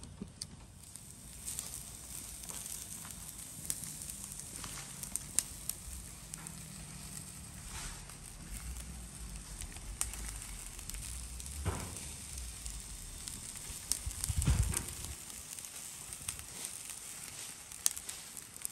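Charcoal fire under barg kebab (thin-sliced beef in a wire grill basket) crackling and sizzling, with many scattered sharp pops. Low gusting whooshes of air as the coals are fanned, and a single dull knock about three-quarters of the way in.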